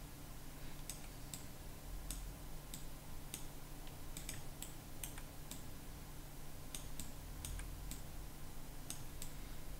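Faint, irregular clicks from a computer mouse and keyboard, roughly one or two a second, over a low steady hum.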